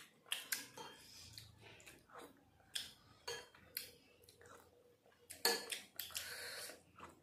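Metal spoons clinking and scraping faintly on ceramic plates as sugar syrup is spooned up, with soft sipping and mouth sounds. The sounds are scattered and get louder about five and a half seconds in.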